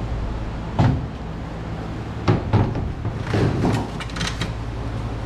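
Butler Built aluminum racing seat knocking and scraping against the chassis tubing as it is worked down into a dirt late model's cockpit: a sharp knock about a second in, two more a little past two seconds, then a run of clatter. A steady low hum runs underneath.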